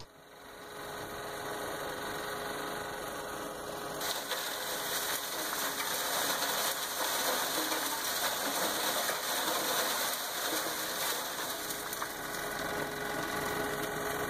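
Engines running steadily under a large dry washer, and from about four seconds in, a louder rushing hiss of dirt and rock pouring from a backhoe bucket into the dry washer's hopper, running for about ten seconds.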